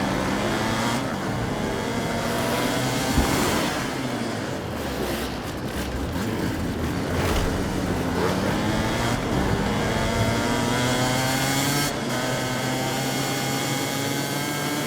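Many hard enduro motorcycle engines running and revving together, several pitches rising and falling over one another.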